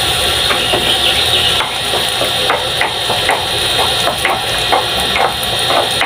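Stone pestle grinding in a volcanic-stone molcajete: a run of short scraping strokes, about two or three a second, starting about a second and a half in. Under it, chicken frying in a pan with a steady sizzle.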